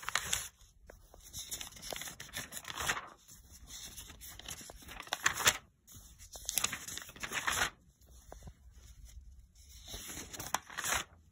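Paper pages of an old magazine being turned and handled, in several rustling spells with short pauses between them.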